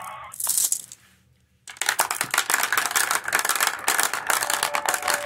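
Many glass marbles rolling and clacking down the plastic ramps of a toy marble-run tower: after a brief hiss and a moment of quiet, a dense, continuous clatter of clicks starts about two seconds in.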